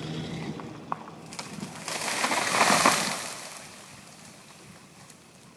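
A felled tree coming down: a few sharp cracks, then a rushing crash of branches and leaves about two to three seconds in that dies away.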